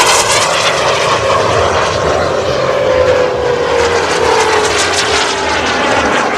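Turbine engine of a Natrix RC model jet whining steadily in flight, its pitch falling slowly as the jet moves away.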